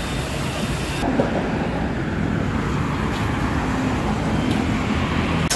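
Street traffic noise, a steady low rumble, whose sound changes about a second in.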